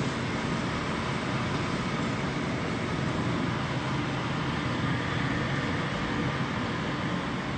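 Falafel balls deep-frying in a pot of hot oil, making a steady, even sizzle.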